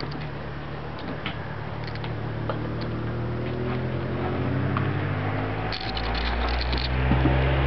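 A motor or engine running with a steady low hum that slowly rises in pitch and gets louder through the second half. Scattered light clicks and taps sound over it.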